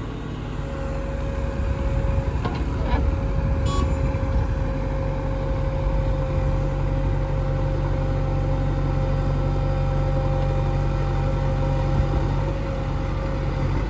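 JCB 3DX backhoe loader's diesel engine running steadily, with a steady whine over the low drone.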